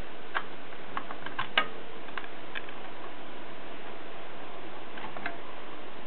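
Scattered mechanical clicks and knocks from a Gossen Tippa portable typewriter being handled rather than typed on. A cluster of clicks comes in the first three seconds, the loudest about a second and a half in, and two more come near the end, over a steady hiss.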